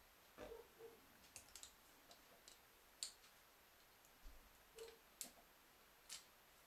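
Faint, irregular metallic clicks and scrapes of a small steel tool picking at the shield of a small ball bearing on a baby stroller wheel's axle, prying the bearing open to put grease inside.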